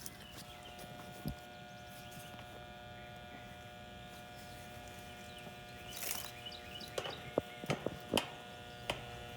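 Steady electrical hum-buzz from a Goodman AC condenser unit that is failing to start, the sign the technician reads as a failed run capacitor. A sharp click about a second in and a run of clicks and knocks from about six to eight seconds in, of hands and tools on the unit.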